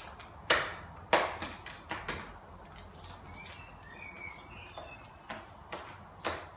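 Homemade fluffy slime squished, pulled and pressed by hand on a kitchen countertop, giving a series of wet squelches and slaps. Two loud ones come in the first second or so, and several more follow near the end.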